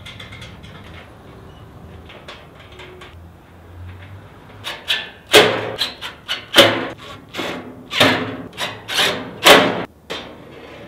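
Cordless impact driver driving long bolts into the fire pit table's metal frame in a run of short, loud hammering bursts, starting about halfway through. Before that there are only quiet handling knocks.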